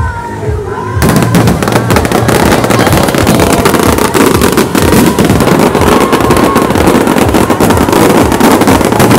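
Fireworks going off in a dense, loud barrage of rapid crackling and bangs that starts suddenly about a second in. Music is heard before the barrage begins.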